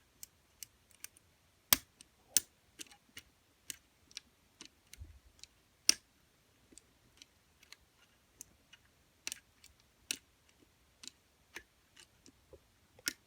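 Picking tools working inside an all-steel, four-lever Squire 660 lever padlock: irregular small metal clicks and ticks as the wire pick lifts the levers under tension, with a few sharper, louder clicks.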